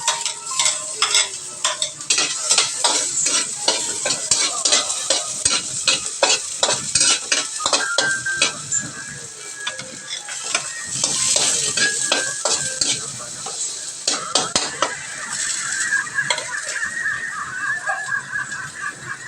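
Food sizzling in a hot pan while a metal utensil stirs it, clinking and scraping against the pan several times a second.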